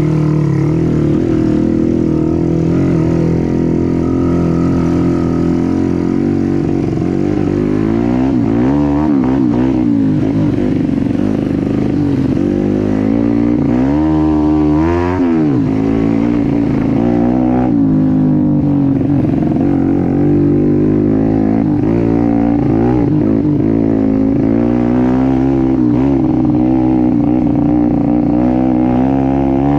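Trail motorcycle engine running under load, its pitch rising and falling again and again as the throttle is worked, with a sharp rev up and back down about halfway through.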